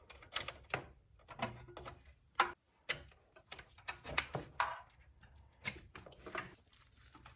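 Cables being unplugged from the back of a desktop computer: a string of irregular clicks and knocks as the plugs are pulled out.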